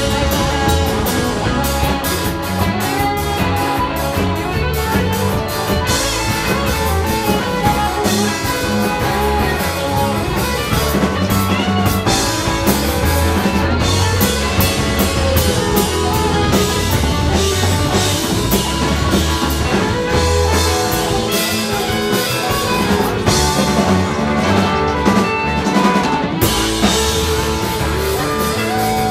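Live rock band playing loud and steady: drum kit with a constant run of cymbal hits, electric bass and electric guitar.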